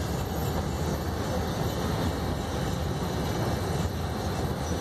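Freight train wagons rolling across a high viaduct: a steady, low rumble.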